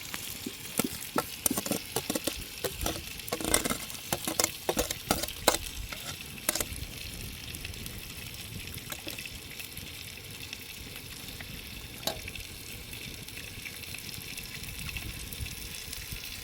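Food sizzling as it fries in a pan. A run of sharp clicks and knocks comes in the first seven seconds or so, then it settles to a steady sizzle with a single click later on.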